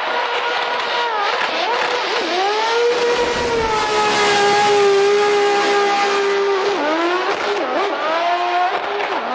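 Drifting car's engine held at high revs, its pitch dipping and climbing back as the throttle is lifted and reapplied, over the hiss of screeching tyres.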